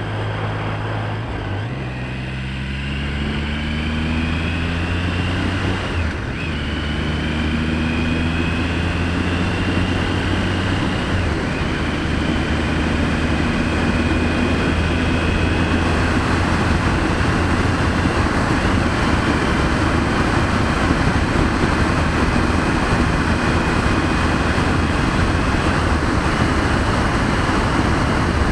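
Motorcycle engine pulling hard through the gears, its pitch climbing steadily and dropping at each upshift, about five shifts in all. A rushing wind noise grows as speed builds.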